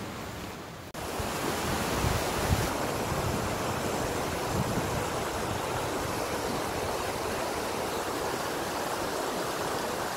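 A steady rushing noise that starts abruptly about a second in, with a few low rumbles around two seconds in.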